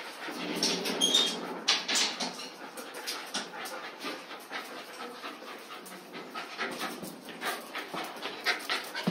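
A dog panting, with many short clicks and taps throughout and a few louder bursts about one to two seconds in.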